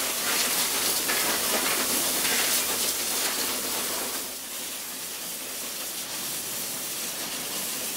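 Steam jets of a steam locomotive's mechanical stoker hissing steadily as they blow coal from the distribution table into the firebox. The hiss drops a little about four seconds in.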